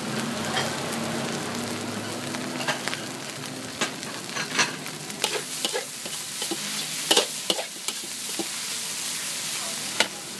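Metal spatula scraping and turning fried rice in a hot wok: a steady sizzle of frying, broken by irregular sharp scrapes and clinks of the spatula against the pan.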